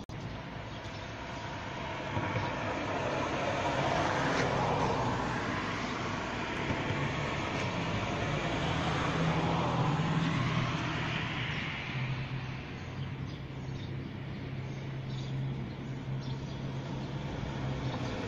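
A motor vehicle passing: broad traffic noise swells about two seconds in and eases off after about twelve seconds, with a low steady engine hum through the second half.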